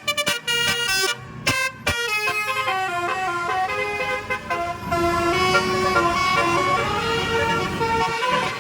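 A bus's telolet basuri multi-tone air horn playing a melody: a few short notes in quick succession, then from about two seconds in a continuous run of stepping notes, with the bus engine rumbling underneath.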